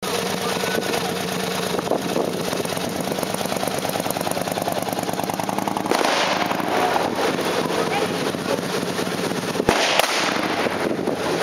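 Blank gunfire from a battle re-enactment: scattered shots and crackle, with a sharp crack about ten seconds in.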